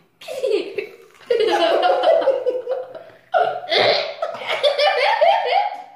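Hearty laughter in three long bouts, the middle and last ones the loudest.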